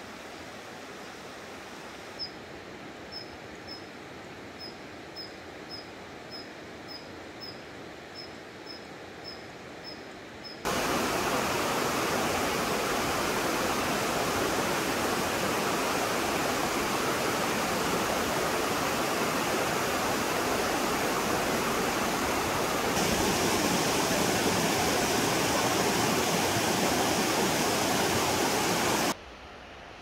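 A small bird gives a short high call over and over, about two a second, over a soft background hush. About a third of the way in this cuts to the loud, steady rush of a mountain stream, which drops away abruptly just before the end.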